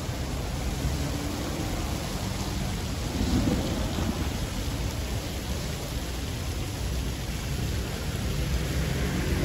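Steady rumble and hiss of city street traffic as taxis, cars and buses pass, swelling slightly about three seconds in.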